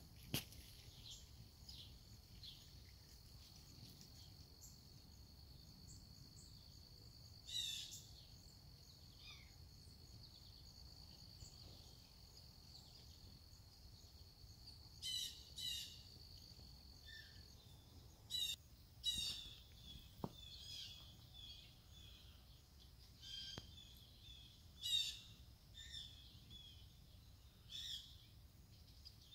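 Faint songbirds chirping: short chirps and trills come every few seconds. Under them a steady high-pitched insect buzz runs and stops a little past halfway.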